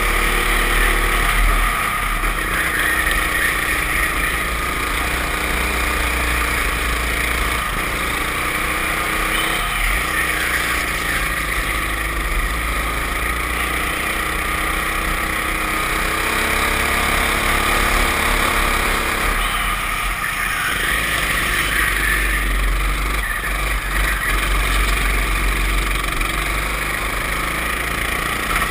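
Racing kart engine heard from the driver's seat, running hard, its pitch climbing on the straights and dropping as it slows for the corners, several times over.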